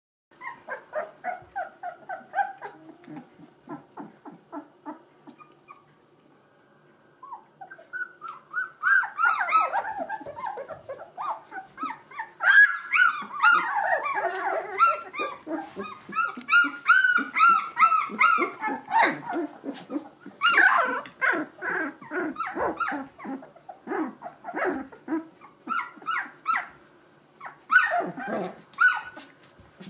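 A litter of two-week-old Gordon Setter puppies whining and squeaking: many short, high calls in quick succession, several pups overlapping, with a brief lull about five to seven seconds in.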